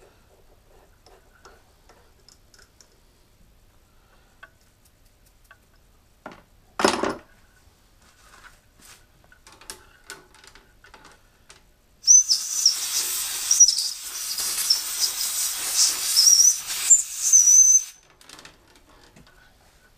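Compressed-air blow gun blowing cast-iron chips out of freshly tapped holes: a short blast about seven seconds in, then a steady hiss with a wavering whistle for about six seconds from about twelve seconds in. Light scraping clicks come before it.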